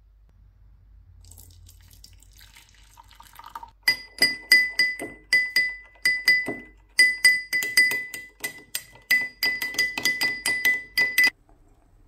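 Metal spoon rapidly striking the inside of a glass tumbler while whisking instant coffee and sugar into a frothy paste: a fast run of ringing glass clinks, several a second, starting about four seconds in and stopping suddenly near the end.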